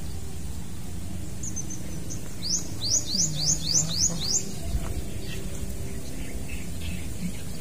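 A bird singing a quick run of six or seven short, high rising notes, about four a second, a few seconds in.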